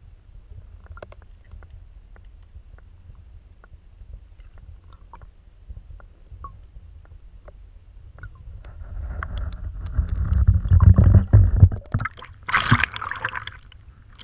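Underwater river sound picked up by a submerged camera: a steady low rumble of current with faint scattered ticks, likely gravel knocking along the bed. About eight seconds in a louder rushing builds, then a loud splash and sloshing comes as the camera breaks the surface, about twelve seconds in.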